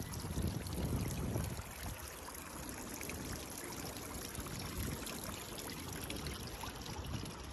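Water trickling steadily in a shallow stone water feature, with a low rumble in about the first two seconds.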